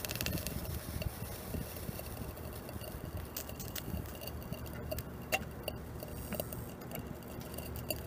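Rewound microwave-oven transformer humming steadily under heavy load while its copper leads, pressed onto an aluminium can, give scattered sharp clicks and crackles at the contact points as the current heats the can.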